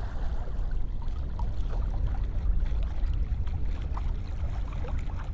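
Water trickling and lapping along the hull of a Hallberg-Rassy 44 sailing yacht moving slowly through calm water, with small splashes scattered over a steady low rumble.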